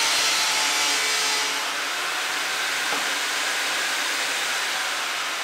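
Table saw running steadily, its spinning blade cutting through a wooden board.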